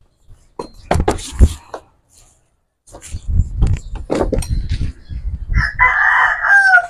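Hard plastic clacking and knocking as a motorcycle's plastic side panel is pushed and fitted onto the frame, then a rooster crowing near the end.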